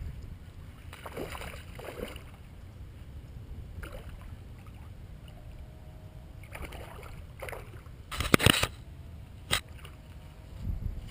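Steady low outdoor noise of wind and water on the microphone, with scattered knocks and rustles of handling. About eight seconds in comes a short, loud burst of noise, then a single sharp click a second later.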